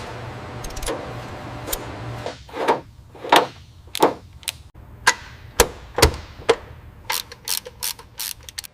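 Hand tools knocking on car parts during a suspension rebuild. Sharp knocks, each with a short ring, come roughly every half second, followed near the end by a quicker run of lighter clicks. A low steady hum sits under the first couple of seconds.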